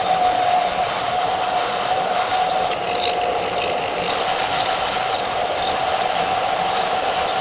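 An electric power tool running steadily with a constant mid-pitched whine over a hiss, working an ash wood hammer handle; the high hiss drops away briefly about three seconds in.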